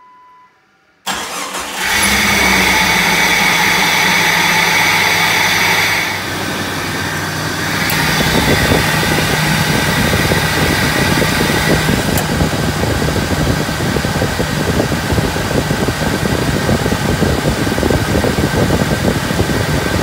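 Jeep Cherokee XJ's 4.0-litre straight-six starts about a second in and then idles steadily. It is the first start after resealing the oil filter adapter.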